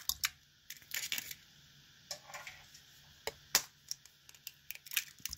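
Eggs being cracked against the rim of a pot and their shells pulled apart: a scatter of sharp taps and crackles, the loudest knock about three and a half seconds in.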